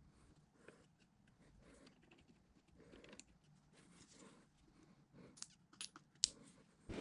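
Faint clicks, taps and rustles of hands handling a small electric motor and its parts on a workbench. A few sharper clicks come near the end as a power cord is worked into the motor housing.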